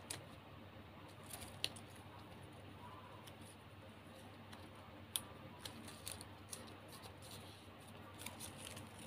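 Faint, scattered crisp crackles and clicks of stiff plastic gift ribbon strips being handled, pulled apart and folded between fingers.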